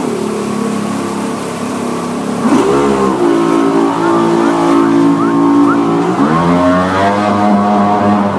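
Motorboat engine running under way, its pitch dropping as the throttle eases off at the start, then rising again about three seconds in and once more about six seconds in.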